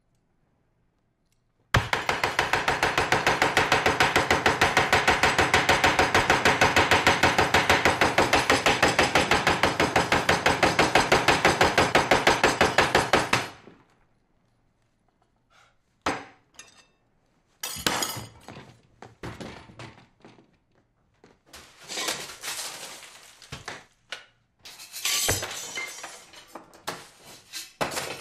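A salt dispenser worked hard and fast over a breakfast plate: a loud, even rattle of rapid strokes for about twelve seconds that stops suddenly. After a short pause come scattered clinks and knocks of tableware and glass.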